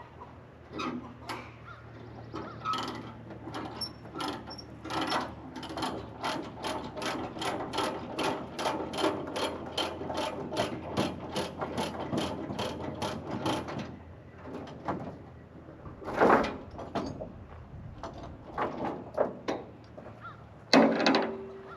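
A ratchet being worked, clicking steadily about three times a second, typical of a ratchet strap or chain binder being loosened to free a tractor for unloading. Two louder knocks come near the end.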